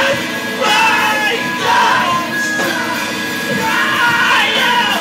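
Live post-hardcore band playing loud: electric guitar, bass guitar and drums, with a yelled lead vocal coming in and out over the music.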